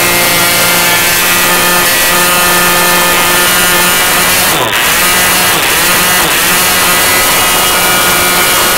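Small model airplane engine running at high speed on a test stand, its propeller spinning. About halfway through the note drops sharply for a moment and climbs straight back, after which the pitch wavers slightly.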